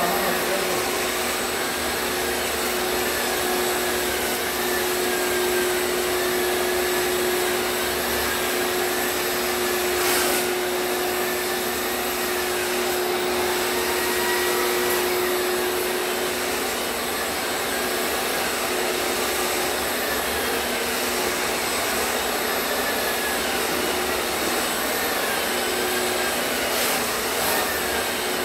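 Long-handled drywall pole sander with a shop vacuum attached by hose, running steadily as it sands popcorn texture off a ceiling: a continuous whir with a steady hum.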